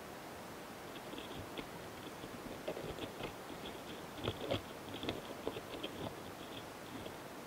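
Courting Gaurotes doris longhorn beetles moving on a flower head, heard very close up: a scattered run of small scratchy clicks and crackles, busiest in the middle, with a few soft thumps.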